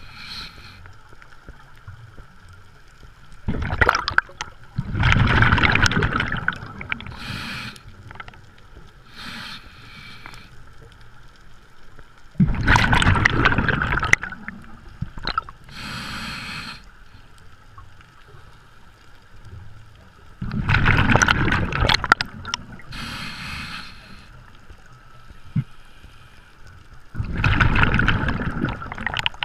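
A scuba diver breathing underwater through a regulator: a short hiss on each inhale and a long gurgle of exhaled bubbles, four exhalations about seven to eight seconds apart.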